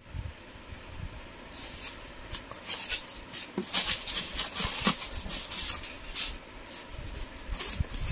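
Polystyrene foam packing sheets rubbing and scraping against each other and the box as they are lifted out, a run of short scratchy squeaks that is busiest about four to five seconds in.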